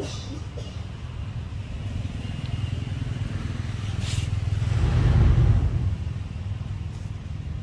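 A motor vehicle passing: a low engine rumble swells to a peak about five seconds in, then fades away.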